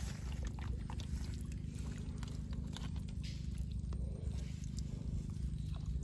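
A hand squelching through wet mud and twigs at a crab burrow, grabbing a mud crab, with scattered small clicks and snaps. A steady low hum runs underneath.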